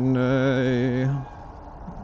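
A man's voice drawing out "and" into one long, steady, held syllable lasting about a second and a quarter while he reads a figure, then only faint background noise.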